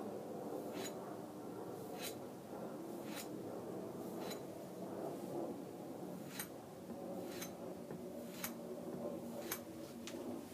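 Hand touch-up of a tomahawk's edge: soft rubbing and scraping strokes, with a sharp tick about once a second.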